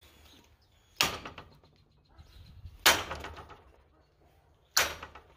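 Three heavy blows from a 4 lb mini sledgehammer, about two seconds apart, each a sharp crack with a short ringing decay.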